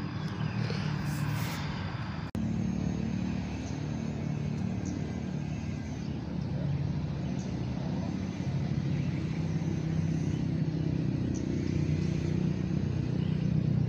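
An engine running steadily with a low, even drone, with a brief drop about two seconds in.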